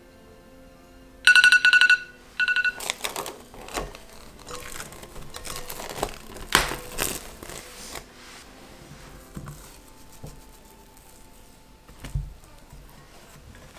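iPhone timer alarm going off as the countdown ends: two short bursts of rapid beeps, then it stops. Plastic cling wrap then crinkles as it is peeled off the glass bowl, and near the end there is a soft thud of the dough being lifted and folded.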